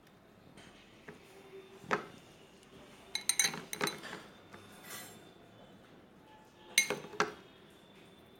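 Utensil clinking against a dish while paneer stuffing is scooped into hollowed tomatoes. There is one clink about two seconds in, a quick cluster of clinks around three and a half seconds, and two more near seven seconds.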